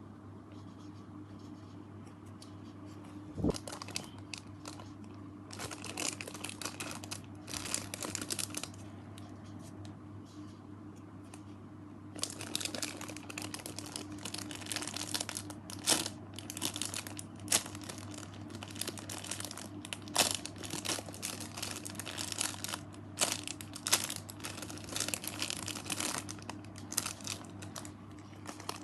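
Plastic crinkling in irregular bursts as it is handled and squeezed, with a single thump about three and a half seconds in. A steady low hum runs underneath.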